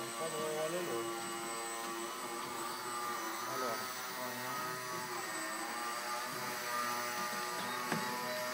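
Electric motor and slow-fly propeller of a small depron Yak 54 indoor RC stunt plane whining as it hovers on its prop, the pitch rising and falling with the throttle, mixed with the whine of a small RC helicopter.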